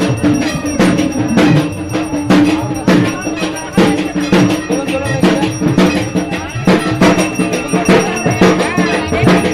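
Rapid, dense drumming and clanging bells of puja worship, many strikes a second over a steady ringing tone.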